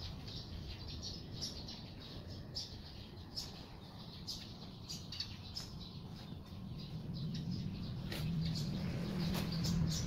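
Small birds chirping, short high chirps every second or so, over the rustle of fabric being hung on a metal rail. A low hum grows louder over the last few seconds.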